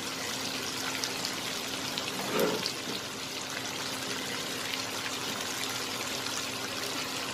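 Masala-coated whole fish shallow-frying in coconut oil in a pan, a steady sizzle with light crackling. A short louder sound cuts in about two and a half seconds in.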